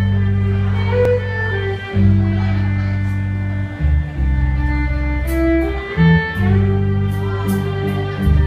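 Live rock band with fiddle: the fiddle carries a stepping melody over electric guitars and long held bass notes, with cymbal strikes joining about five seconds in.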